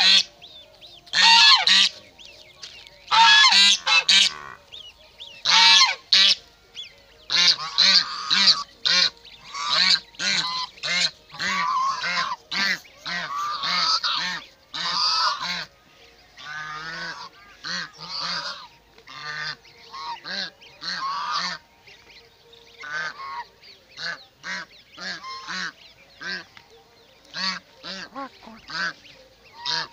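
Domestic geese honking over and over, harsh calls in quick succession, louder in the first half and quieter and more spaced later. These are defensive alarm calls from geese guarding their goslings against the approaching person.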